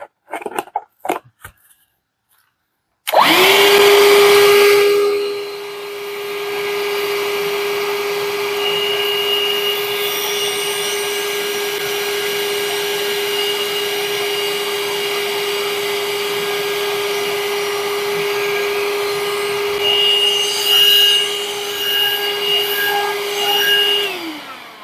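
Parkside 20V cordless handheld vacuum cleaner, with its brush nozzle, switched on about three seconds in. Its motor spins up to a steady whine, runs for about twenty seconds sucking up spilled grit, gets uneven near the end, then is switched off and winds down with a falling pitch.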